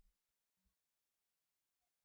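Near silence: a digital hush with no sound of note.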